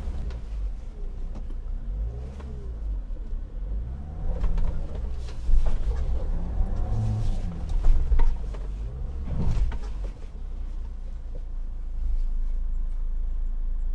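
A JMC Yusheng's 2.4-litre turbodiesel pulling at low speed over rough off-road ground, with a deep rumble throughout. Its revs rise and fall repeatedly over the first ten seconds under throttle, with a few short knocks mixed in, then settle to a steady drone.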